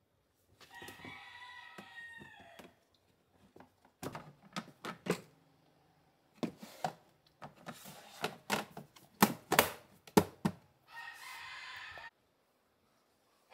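Plastic rice bins on small wheels being pulled out and handled on a wooden bookcase shelf: a run of sharp clicks and knocks of plastic on wood. A drawn-out pitched cry or squeak sounds for about two seconds near the start and again briefly near the end.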